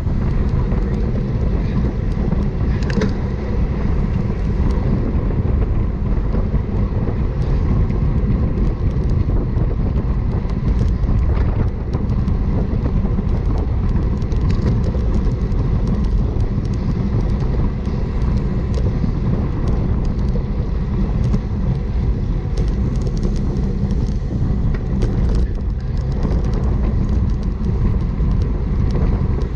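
Wind rushing over the microphone of a bicycle-mounted camera at about 27 mph, a steady low rumble.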